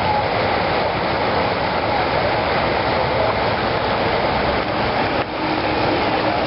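Steady, loud rushing of floodwater.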